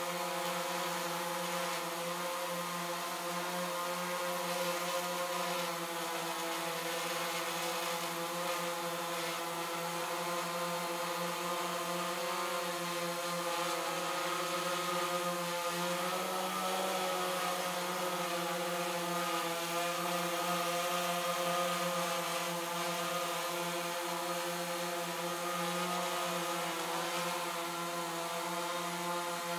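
DJI Phantom 3 Advanced quadcopter's propellers and motors buzzing steadily in flight, with a brief rise in pitch about halfway through as the motors speed up.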